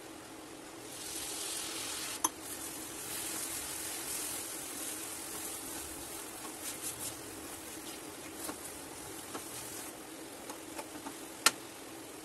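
Condensed milk sizzling as it hits hot roasted vermicelli in a nonstick pan, starting about a second in, while a silicone spatula stirs it through. Two sharp clicks of the spatula on the pan, the louder near the end, with lighter scraping ticks between, over a steady low hum.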